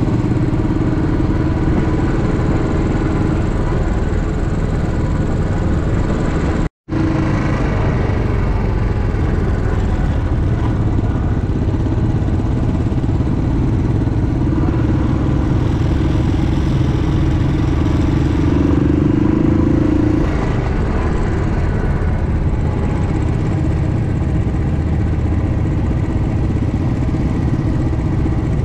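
Motorcycle engine running steadily under way, with a dense rush of wind and road noise; the engine note swells a little between about fifteen and twenty seconds in. The sound cuts out completely for a split second about seven seconds in.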